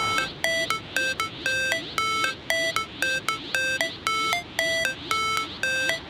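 Outro music: a bright electronic melody of short, beep-like notes, about four a second, stepping between a few pitches.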